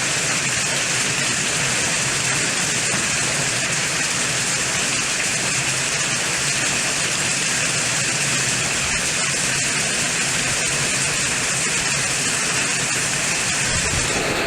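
Heavy downpour of a summer storm: a loud, steady, dense hiss of rain.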